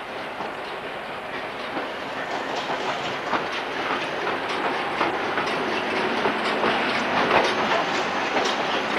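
Train wheels clattering over rail joints as a train rolls along, the clicks and rumble growing steadily louder.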